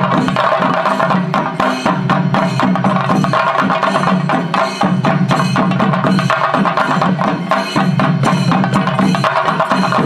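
Chenda drums beaten with sticks in a fast, dense run of sharp strokes, with no break.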